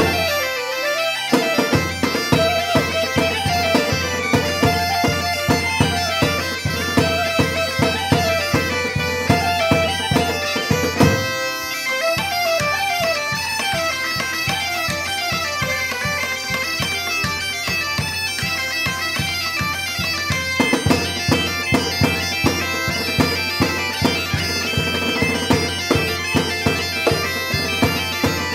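Galician gaitas (bagpipes) playing a lively traditional tune over their steady drone. A bass drum and a rope-tensioned snare drum keep an even beat, with clarinet, fiddle and hurdy-gurdy also playing. The drone and drums drop out briefly about eleven seconds in.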